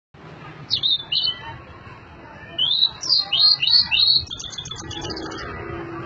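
Male blue-and-white flycatcher singing: a short whistled phrase about a second in, then a longer run of clear sloping whistles from about two and a half seconds, ending in a quick series of high notes.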